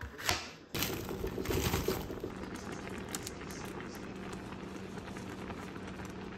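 A knife chops once through cabbage onto a cutting board, then a pan of tteokbokki simmers, its red sauce bubbling and crackling steadily over a low, even hum.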